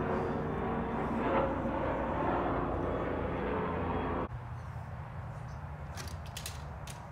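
Steady low background rumble with a faint hum, which cuts off abruptly about four seconds in. After that, quieter background with a few sharp clicks near the end.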